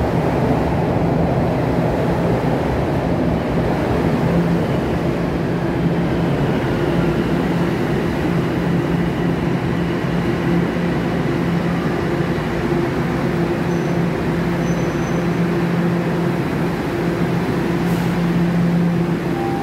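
TTC subway train pulling into the station platform: a steady rumble of the cars rolling past with a low hum, slowing to a stop.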